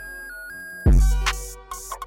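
Background hip hop beat: a synth melody stepping between notes, then a heavy bass hit with drums a little under a second in.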